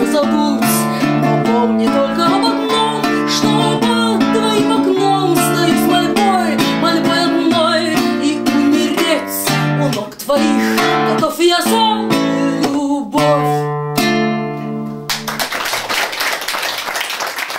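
Acoustic guitar playing the closing bars of a romance, with wordless singing over it. About fifteen seconds in the guitar stops and applause begins.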